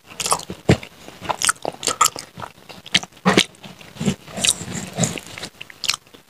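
Close-miked open-mouthed chewing of rice and curry eaten by hand: irregular wet smacks and clicks of lips and mouth, several a second.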